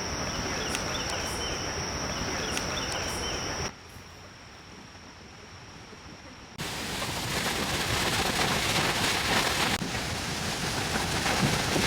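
Outdoor rushing noise heard in abrupt cuts. First a steady hiss with a thin high steady tone and a few faint ticks, then a quieter stretch about four seconds in, then a louder steady rushing hiss from about seven seconds in.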